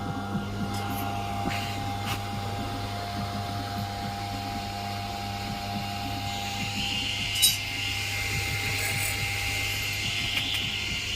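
Steady electrical mains hum from a 150+150 W amplifier, with a higher whine joining about six and a half seconds in and one sharp click about a second later.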